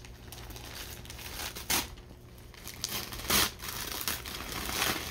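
Wrapping paper being ripped and crinkled as a present is unwrapped: three short, sharp rips over a low rustle of paper.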